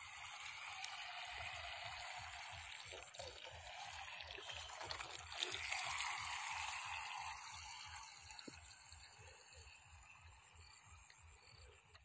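Small remote-control speed boat running across a pond, its propeller churning up a hiss of spray. The hiss grows loudest about halfway through as the boat passes close, then fades as it heads away.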